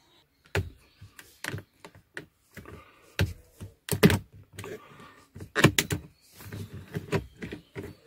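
A screwdriver prying a power window switch out of a car's plastic centre console: irregular sharp plastic clicks and knocks, loudest about four seconds in and again near six seconds.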